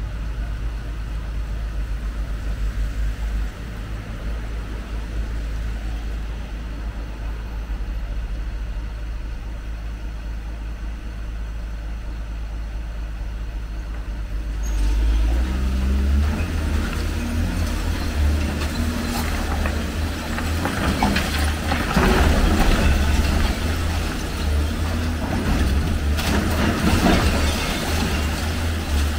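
Hyundai crawler excavator's diesel engine running steadily at low revs, then revving up about halfway as the arm works. From then on, concrete and rubble crash and crunch repeatedly as the building is torn down.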